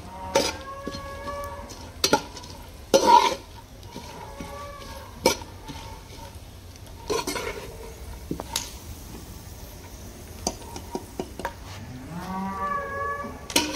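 Pumpkin seeds frying in hot ghee in a kadhai, with a metal spatula stirring them and scraping and clinking against the pan every second or two. Cattle low in the background three times; the last call, near the end, rises in pitch.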